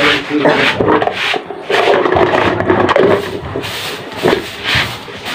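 Plastic cups and a plastic pitcher being handled close by, rubbing and scraping on the tabletop in irregular strokes.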